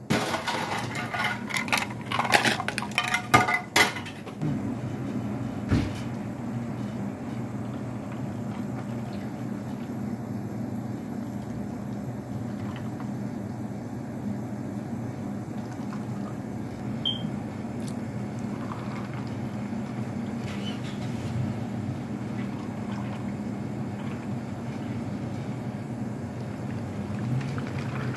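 Ice cubes clinking and clattering into clear plastic cups for the first few seconds. Then comes a steady pouring of milk from a jug over the ice into the cups.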